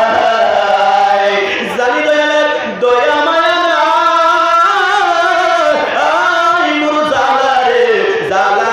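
A man singing a devotional chant solo into a microphone, in long held notes that glide and waver.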